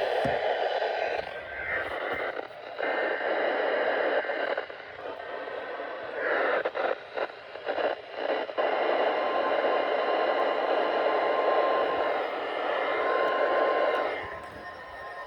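Radio static: a steady hiss from a weather radio receiver on weak reception, dipping and cutting out briefly several times.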